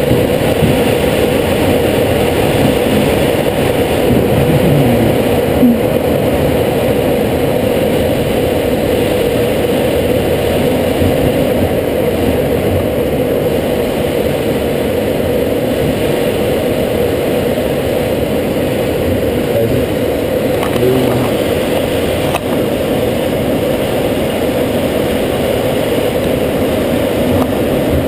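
Steady rush of air streaming over a glider's canopy in flight, heard from inside the cockpit.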